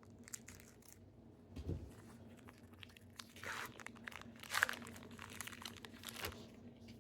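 A baseball-card pack wrapper being torn open and crinkled, with the small clicks of the cards being handled, all fairly quiet. A dull knock comes about one and a half seconds in.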